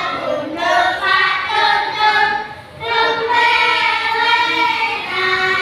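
A class of young children and a woman singing a song together, with a short break between phrases about two and a half seconds in.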